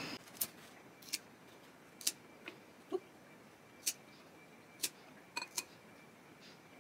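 A series of small, sharp clicks and taps, about one a second and irregular, with two quick double clicks a little after five seconds in.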